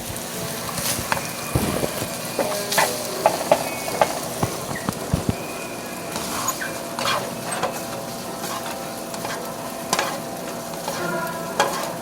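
Food sizzling steadily in a hot pan while a utensil stirs it, with scattered clicks and knocks of the utensil against the pan.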